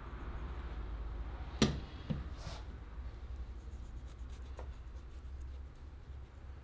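Scratching and rubbing from hand work on a cleaver's handle, over a steady low hum. A sharp knock comes about one and a half seconds in, followed by a lighter knock, a short scrape and, later, a small click.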